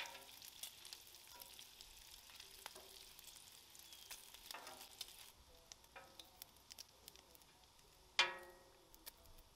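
Bacon sizzling and crackling in its fat on a Blackstone flat-top griddle, with small clicks of metal tongs as strips are lifted off. A single loud, ringing metallic clank about eight seconds in, the tongs striking the griddle, is the loudest sound.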